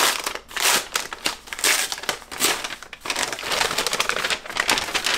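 Bubble wrap crinkling and rustling in irregular bursts as it is pulled off a box being unwrapped.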